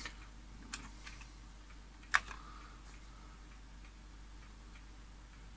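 A few sharp key clicks on the Commodore C128 keyboard as the file is selected and the load is started, the loudest about two seconds in. Faint regular ticking continues underneath.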